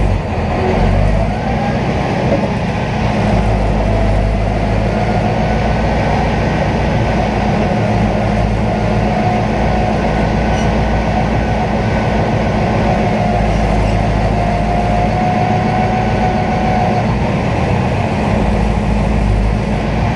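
Duramax diesel pulling truck's engine running loud and steady, heard from inside the cab, with a high whistle that rises slightly in pitch through the middle stretch.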